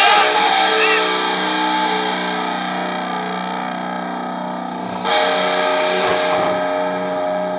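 Distorted electric guitar music holding sustained chords, with a new chord struck about five seconds in.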